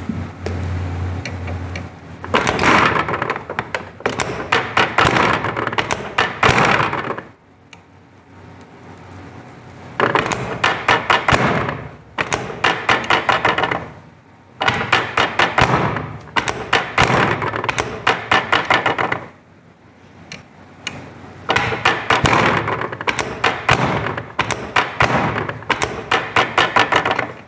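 Chiropractic drop table sections dropping with a sharp clack under repeated thrusts, several knocks a second, in bursts of a few seconds with short pauses between.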